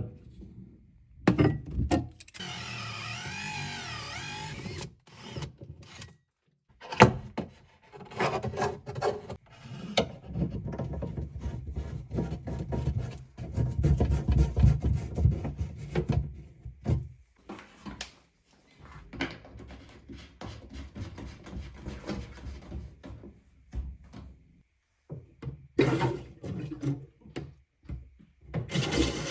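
Plumbing work under a sink cupboard: knocks, scrapes and rubbing of tools against copper pipework and fittings, in short stretches that start and stop abruptly.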